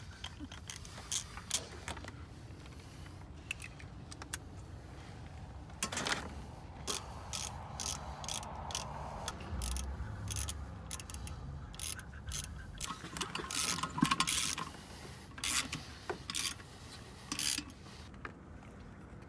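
Metal hand tools clicking and ratcheting at a car wheel, in irregular sharp clicks with short pauses between them.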